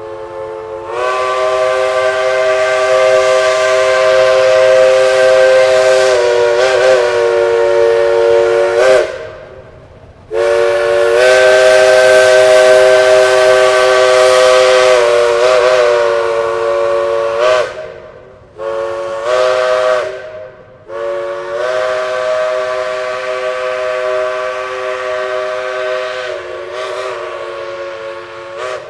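Steam locomotive whistle blowing a chord of several tones over a hiss of steam, in four blasts: two long, one short, one long. This is the long-long-short-long signal sounded for a road crossing.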